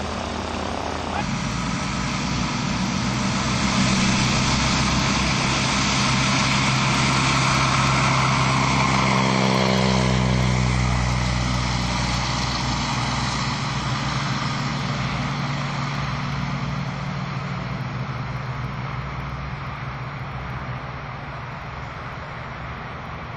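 Breguet 14 biplane's propeller engine at full power on its take-off run. It grows louder, drops in pitch as the aircraft passes about ten seconds in, then fades steadily as it lifts off and climbs away.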